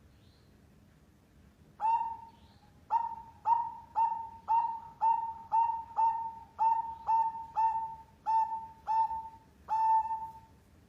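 Zebra dove (perkutut) singing: a run of about fourteen short, ringing coos at one pitch, starting about two seconds in and then coming evenly at about two a second, the last coo held longer.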